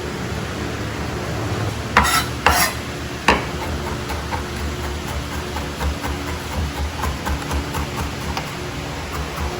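Food sizzling in a pan while it is stirred, with three sharp knocks of a utensil about two to three seconds in, followed by light clicks of stirring.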